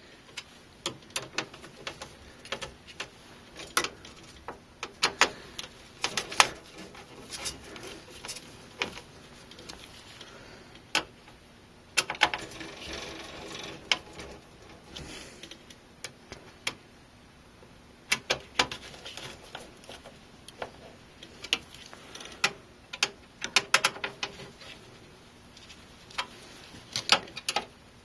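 Screwdriver tightening a motherboard's mounting screws into the case standoffs: irregular small metallic clicks and ticks as the screws are snugged down a little at a time.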